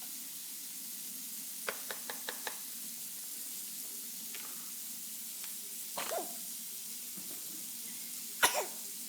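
Food sizzling steadily in a frying pan, with five quick clicks about two seconds in. There is a short throaty burst about six seconds in and a loud, sharp sneeze- or cough-like burst near the end.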